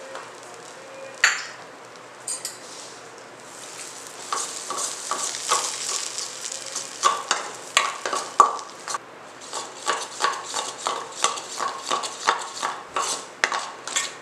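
Hot mustard oil sizzling in a stainless steel mixing bowl. About four seconds in, a metal spoon starts stirring briskly, scraping and clinking against the steel about twice a second, each stroke leaving a short ring from the bowl.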